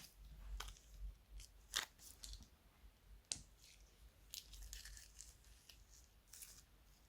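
Slime being worked by hand, giving quiet crinkly crackles and crunchy clicks, with two sharper snaps about two and three seconds in.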